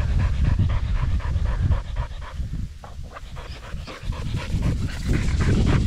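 A hunting dog panting hard in quick, rhythmic breaths, about four or five a second. The panting fades for a couple of seconds midway, then picks up again near the end.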